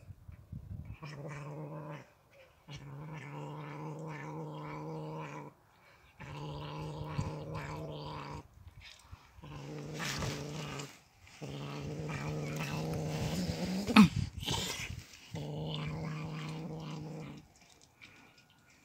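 Domestic cat growling in long, low, drawn-out growls, about six in a row with short breaths between, a warning in a face-off with another cat. A short, sharp, loud outburst comes about fourteen seconds in.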